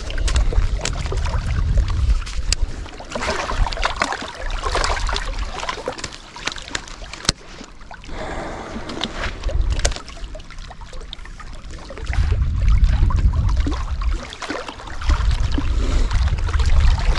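Wind buffeting the microphone in low rumbling gusts, with small waves lapping and splashing among shoreline rocks. A few sharp ticks come through between the gusts.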